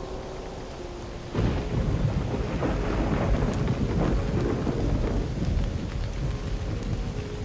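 Rain falling steadily, then about a second and a half in a loud clap of thunder breaks and rolls on as a long, deep rumble that slowly dies away.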